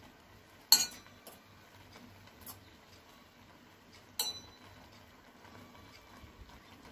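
A utensil clinking against a steel cooking pot: two sharp clinks, one about a second in and one about four seconds in, each with a brief metallic ring, and a few faint ticks between.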